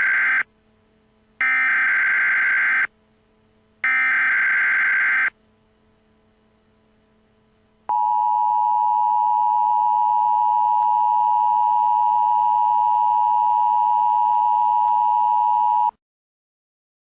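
Emergency Alert System SAME header: the end of one screeching data burst, then two more, each about a second and a half long. A few seconds later the EAS two-tone attention signal sounds as a steady dual tone for about eight seconds and cuts off suddenly.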